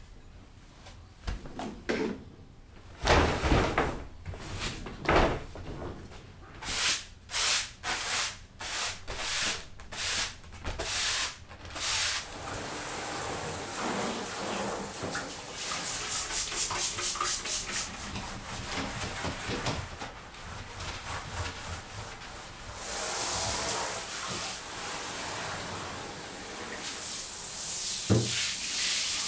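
A couple of dull thumps, then a run of short swishes, then a hand shower spraying water in a continuous hiss over a tiled bathroom floor and tub.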